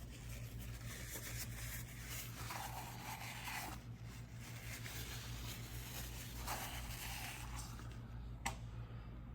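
Paper towel rubbing and scraping as it is pushed around to wipe leftover oil out of a motorcycle's oil filter housing, in several short bouts, with a sharp click near the end over a steady low hum.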